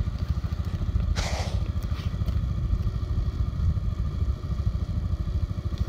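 Four-wheeler (ATV) engine idling steadily, with a short scraping sound about a second in.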